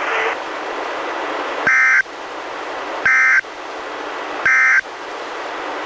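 Three short warbling data bursts, about a third of a second each and roughly 1.4 s apart, over steady radio hiss: the NOAA Weather Radio SAME end-of-message code that closes the required weekly test, heard through a Reecom R-1630 weather radio.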